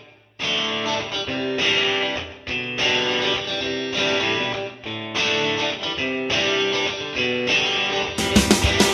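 Background music led by a guitar playing short phrases; near the end a beat with deep bass comes in.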